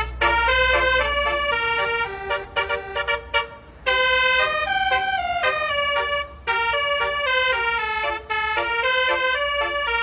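Basuri multi-tone electric horn ('telolet') playing a melody of quick, stepped notes, with short pauses between phrases.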